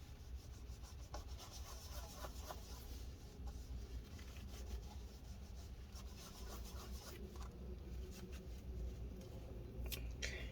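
Faint rubbing and scraping as excess glue is wiped out of a laptop's plastic case, with a few light clicks.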